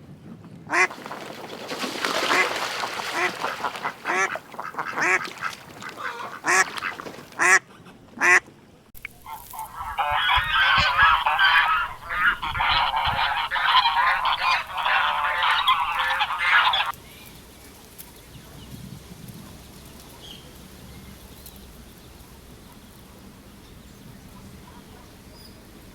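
A duck quacking repeatedly in separate calls for about eight seconds. Then, after a break, comes a dense stretch of many overlapping duck calls for about seven seconds, which stops suddenly and leaves only faint background noise.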